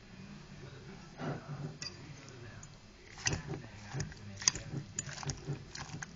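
Spoon stirring soft cooked pumpkin with butter in a bowl: wet squishing with light clicks of the spoon against the bowl, coming thicker from about three seconds in.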